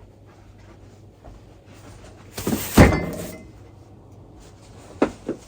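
A short rustling clatter with one sharp thunk about halfway through, then two light knocks near the end, like objects being handled and set down.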